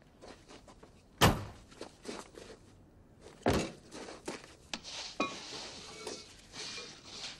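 A car door slams shut about a second in, followed by a second heavy thud a couple of seconds later, then a run of lighter footsteps.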